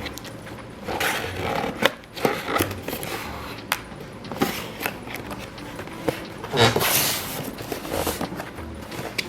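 Toy packaging being handled and opened: scattered clicks and taps with a couple of brief scraping, rustling bursts, about a second in and again near seven seconds.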